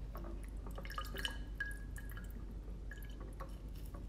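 Lemon juice dripping into a glass as a lemon piece is squeezed by hand: an irregular patter of small drops with short high plinks, busiest about a second in.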